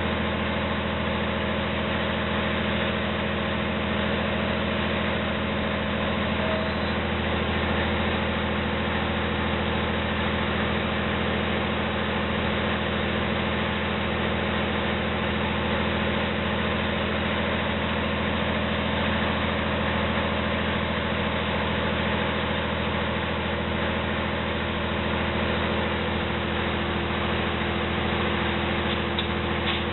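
Diesel engine idling steadily at an even pitch.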